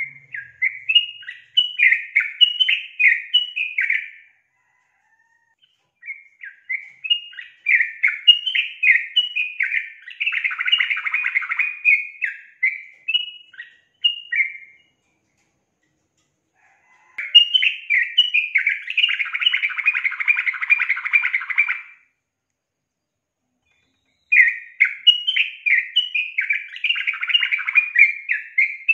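Yellow-vented bulbul (trucukan), given as a female, singing in four bursts of quick bubbly notes, each lasting a few seconds with short pauses between. Several bursts end in a denser, buzzy chatter. This is the female's song used as a lure to get male trucukan singing.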